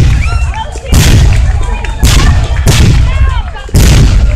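Fireworks exploding: four loud booms about a second apart, each trailing off in a low rumble.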